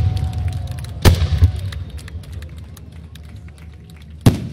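Aerial firework shells bursting: a loud bang about a second in with a long low rumble trailing off, scattered small crackles throughout, and another bang near the end.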